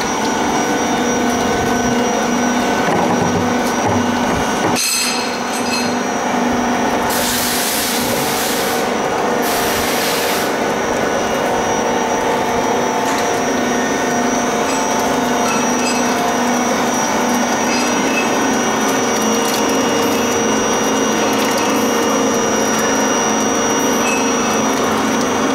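Has Makina MK-65 screw oil press running steadily while pressing nigella seeds: a constant machine hum from its motor and gearbox, with several steady tones. A short knock comes about five seconds in, followed by two brief bursts of hiss a couple of seconds apart.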